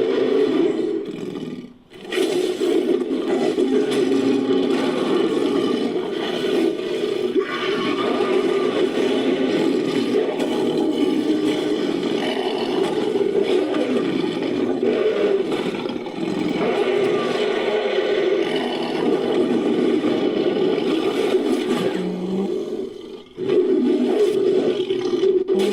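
Designed creature roar, layered from big-cat and ape roars: one roar ends about two seconds in, then a long continuous roar runs for some twenty seconds before a short break and a fresh roar near the end.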